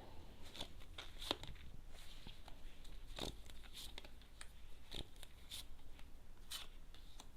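Tarot cards being handled: a few faint, scattered slaps and clicks as cards are drawn and laid down.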